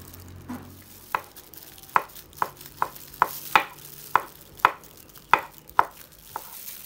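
Chef's knife slicing pork sausage (moo yor) into strips on a bamboo cutting board: about a dozen sharp knocks of the blade on the board, roughly two a second.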